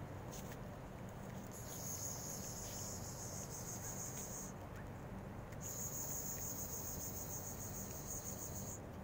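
An insect trilling, high and steady, in two long spells of about three seconds each with a short break between them.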